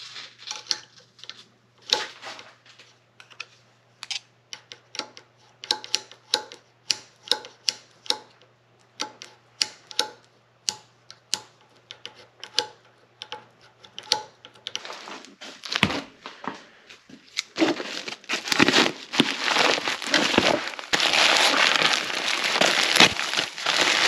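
Sharp metallic clicks and snaps, one to three a second, from the levers and latch of a 1987 Porsche 944 door lock mechanism being worked with picks. About fifteen seconds in, a louder, continuous crinkling starts as a plastic postal mailer bag is handled.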